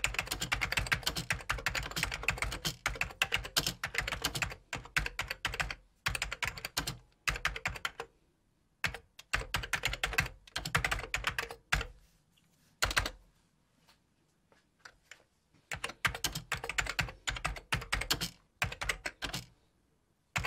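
Computer keyboard being typed on: rapid runs of key clicks in bursts of a few seconds, broken by short pauses, with a single lone keystroke in one pause.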